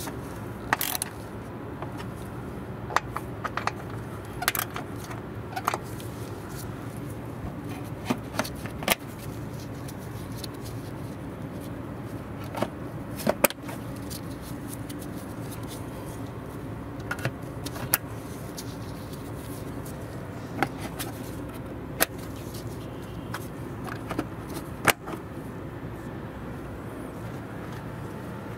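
Plastic push-pin clips on a car's radiator support cover being pried and worked loose with a small tool: scattered sharp plastic clicks and small rattles every second or two, over a steady low background rumble.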